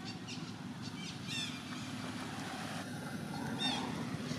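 Steady low motor hum, with short high chirps about a second and a half in and again near the end.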